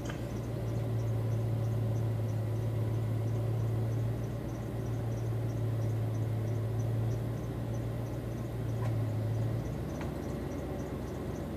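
A steady low hum that stops about nine and a half seconds in, with faint high ticking about three times a second throughout.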